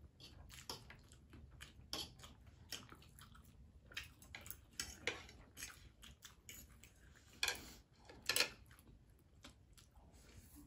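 Close eating sounds of two people eating noodles and chicken: chewing and mouth noises with many small clicks of a fork and chopsticks on plates. Two louder, longer eating noises come about seven and a half and eight and a half seconds in.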